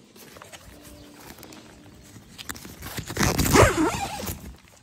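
Nylon tent fabric rustling as the door is handled, then about three seconds in a loud rasp as the door's fastening is worked.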